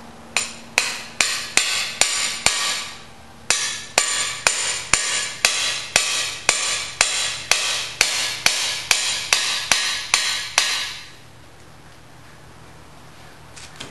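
Hammer blows on a short-handled cam bearing driver, driving a bimetal cam bearing into its bore in a Ford 428 FE engine block. The metallic strikes ring and come about two a second: a half-dozen, a pause of about a second, then about sixteen more before they stop.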